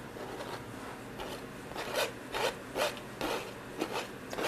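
Palette knife scraping and flicking paint onto a stretched canvas. A light rub gives way, about two seconds in, to short quick strokes, about two a second.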